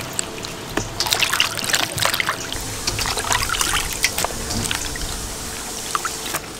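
Water splashing and dripping as hands wash wild mushrooms in a steel bowl of water and lift them out, dripping. The splashes and drips come thick at first and thin out after about four seconds.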